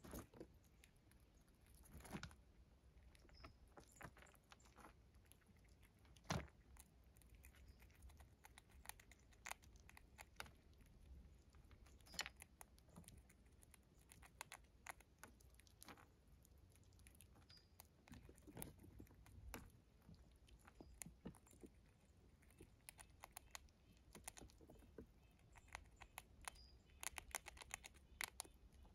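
Faint, irregular clicks and crunches of a gray squirrel chewing dried corn kernels and rooting through the pile on wooden boards, with a quick run of clicks near the end.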